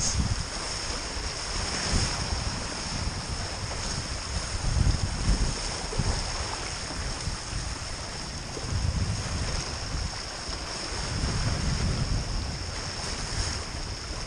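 Wind buffeting the microphone in uneven gusts, over the steady rush of a small sailing catamaran's hulls cutting through choppy water.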